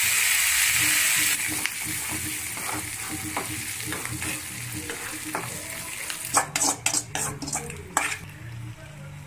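Green leaves sizzling in hot oil in a metal kadai, loud at first and dropping to a steadier, quieter sizzle after about a second. Near the end a metal spoon clicks and scrapes against the pan several times.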